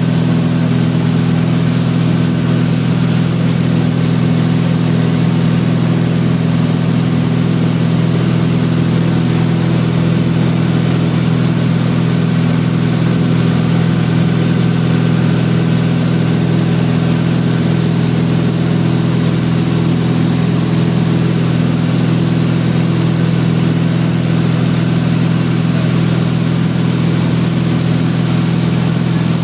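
Steady drone of a 1958 Cessna 172's Continental O-300 six-cylinder engine and propeller at constant cruise power, heard inside the cabin, with an even hiss of rushing air over it.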